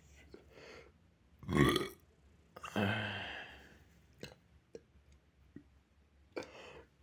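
A boy burping twice: a short loud burp about a second and a half in, then a longer, lower burp that fades out. Faint clicks and a short breathy sound follow near the end.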